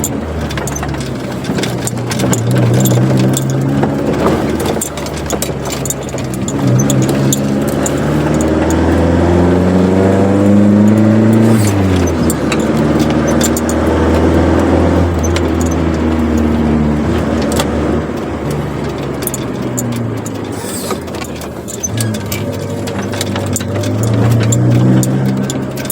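Chevrolet Corsa Wind's small four-cylinder engine through a sports exhaust while driving. The engine note climbs for several seconds, drops sharply about halfway through, runs on and sinks, then climbs again near the end. Light jingling clicks run over it.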